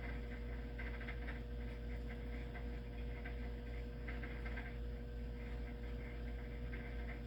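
Steady low electrical hum of room tone, with faint irregular higher sounds coming and going over it.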